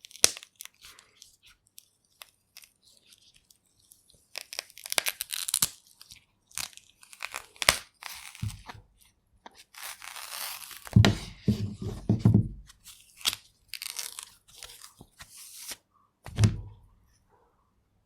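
Bananas peeled by hand, close up: irregular snaps and crackles as the stems break and the peels are torn back in strips, with a few dull thumps of handling.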